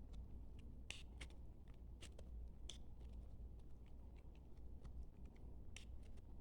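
Knife cutting into bar soap: a few faint, crisp crackles and ticks at irregular intervals, the clearest about one, two and three seconds in and again near the end.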